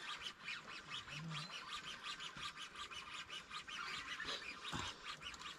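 Fishing reel drag clicking rapidly and steadily, fairly faint, as a hooked fish pulls line off the reel.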